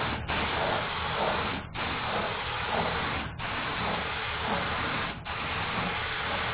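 Compressed-air paint spray gun hissing in strokes, cut off briefly four times as the trigger is released between passes.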